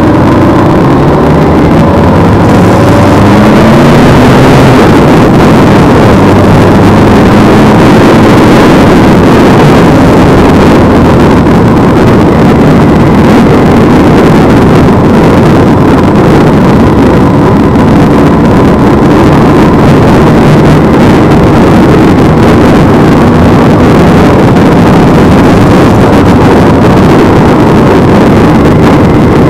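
Motorcycle riding at speed: the engine rises in pitch as it accelerates over the first few seconds, then heavy wind rush on the microphone covers a steady engine drone.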